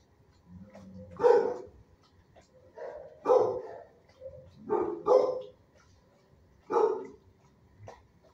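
A dog barking: five loud barks a second or two apart, two of them close together in the middle, with a few quieter yips between.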